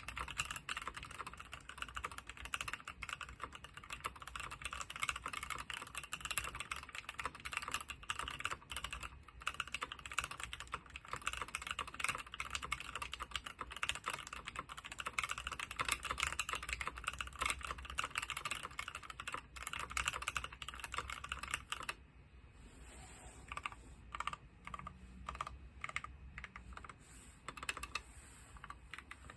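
DC60 mechanical keyboard with NK Cream linear switches lubed with Krytox 205g0 on a brass plate, typed on quickly and continuously. About three-quarters of the way through, the typing thins out into slower, sparser and quieter keystrokes.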